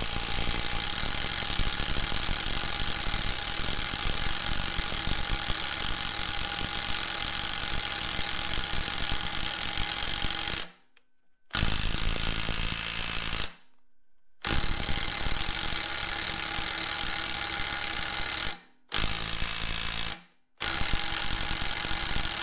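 Cordless impact wrench hammering on the rusted exhaust-elbow bolts of a Massey Ferguson tractor engine. It runs in five goes: one long burst of about ten seconds, then four shorter bursts with brief stops between them, and the bolts are not yet coming free.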